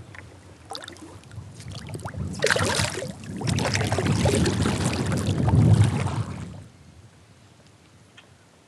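Water splashing beside a kayak as a smallmouth bass is released over the side, going on for about four seconds before dying down.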